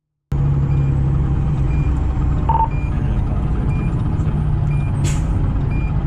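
Diesel engine of a 2010 Pierce Arrow XT fire engine running, heard from inside the cab, cutting in just after the start. A short high beep repeats about once a second, and a brief hiss of air comes about five seconds in.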